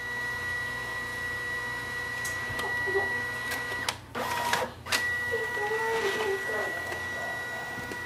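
Brother MFC-J4535DW inkjet all-in-one scanning through its automatic document feeder: the feed and scanner motors run with a steady whine, broken briefly about four seconds in with a few clicks.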